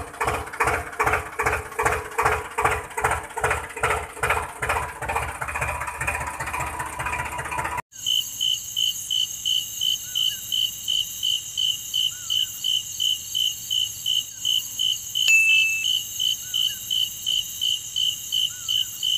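A rhythmic engine-like chugging, about two to three beats a second, stops abruptly after about eight seconds. Then a cricket chirps in an even rhythm, a little over two high chirps a second, with a few faint short chirps now and then.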